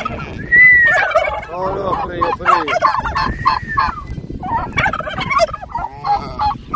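Several domestic turkey toms gobbling over and over in quick, overlapping rattling calls, with one loud high call about half a second in. The toms are in strut display, tails fanned.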